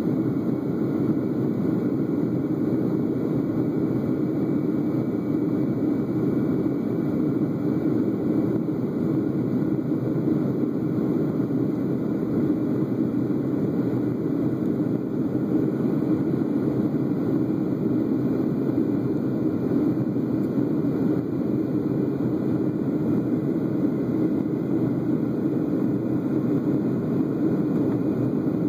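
Steady engine and airflow noise inside an airliner cabin in flight: a low, even rushing hum that does not change.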